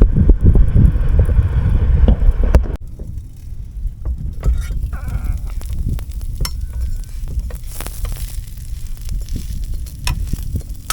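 Wind buffeting the microphone, then a sudden drop about three seconds in to light sizzling from fish cakes frying in a RidgeMonkey pan on a gas camping stove, with scattered small clicks. A brief wavering cry is heard about five seconds in.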